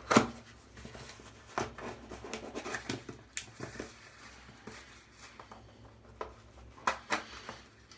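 Small objects and packaging being handled on a counter: scattered clicks, taps and light rustling, with a sharp knock right at the start and two more close together near the end.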